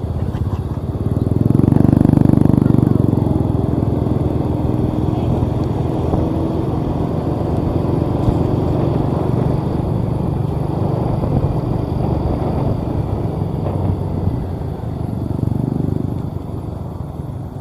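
Maxxi J Automatic combine harvester's engine running steadily as the machine travels, getting a little louder about two seconds in.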